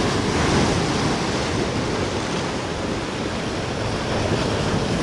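Surf breaking and washing over shoreline rocks: a steady rushing of foaming seawater.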